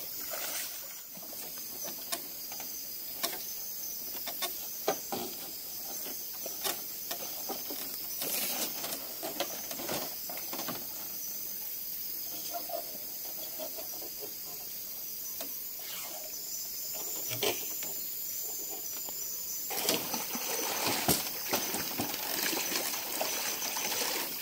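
Trickling water with a steady high-pitched hum over it and scattered small clicks and knocks; the water and knocking grow louder about 20 seconds in.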